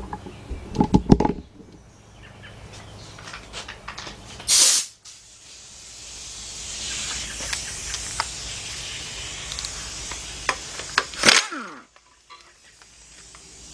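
Short loud hissing bursts and a longer steady hiss, with scattered metal clicks, while the bolts holding the engine stand's mounting plate to the engine are worked loose.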